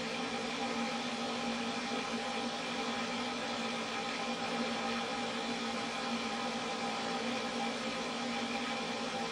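Stand-mounted pet grooming dryer running steadily, blowing air for fluff drying: a constant rushing hiss over a steady motor hum.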